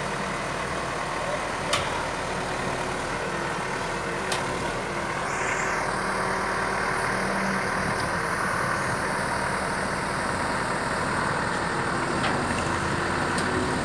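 CASE 770 backhoe loader's diesel engine idling steadily, with a couple of short clicks in the first few seconds.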